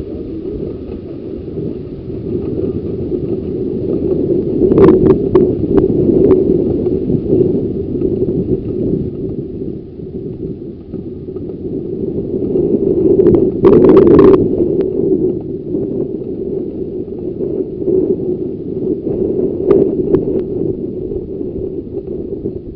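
A 15-inch gauge miniature railway train running, heard from on board: a steady rumble of wheels on the track, broken by sharp clicks and rattles. The clicks come in a few short bunches, the loudest a little past halfway.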